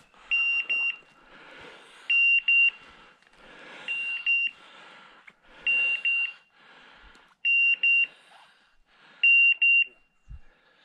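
A pointer's beeper collar sounding in point mode: a high electronic beep figure, one longer tone and a few short ones, repeating about every two seconds, the signal that the dog is standing on point. Faint rustling of footsteps through grass and brush runs between the beeps.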